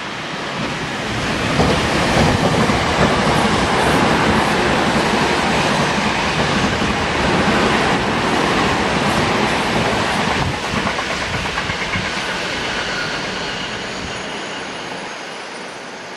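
Tokyo Metro 6000 series electric commuter train running past on the track. It swells to its loudest about two seconds in, holds, then fades away over the last several seconds.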